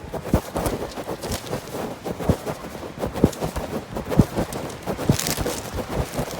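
Footsteps at a walking pace, about two steps a second, each a short dull thump.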